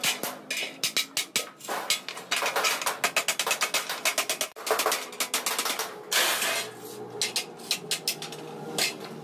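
Hammer blows on sheet steel: quick, uneven metal strikes several a second, with a short burst of hissing noise about six seconds in.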